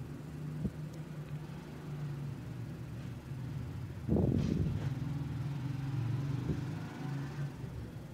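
A steady low motor hum, getting louder about four seconds in, with a few faint clicks.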